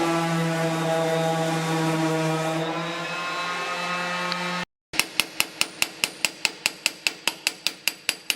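A workshop machine runs with a steady droning hum, then cuts off abruptly about halfway through. After a brief gap comes a quick, even series of sharp taps, about four or five a second, fading as they go on.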